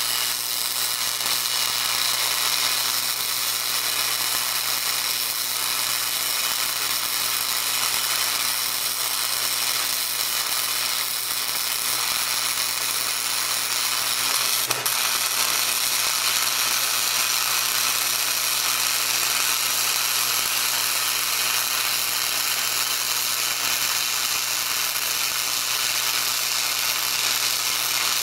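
Wire-feed (MIG) welder laying one continuous bead, the arc crackling steadily without a break.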